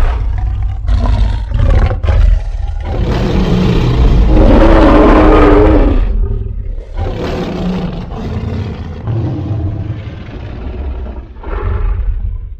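Monster-roar sound effects for a huge reptilian creature: several short growls, then one long loud roar about three to six seconds in, followed by quieter growls and a last short one near the end, over a constant deep rumble.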